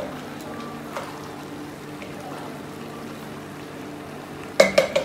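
Wooden spoon stirring macaroni in a stainless steel pot, faint scraping over a steady low hum, then near the end a quick run of sharp, ringing clanks against the metal pot.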